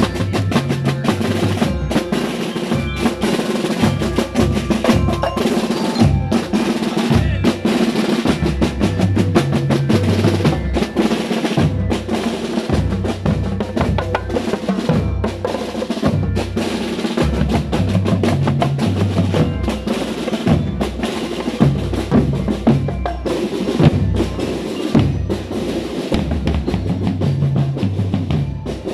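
A marching drum line playing a continuous cadence: snare drum strokes and rolls with a five-drum tenor set, over a repeating pattern of deep low drum beats.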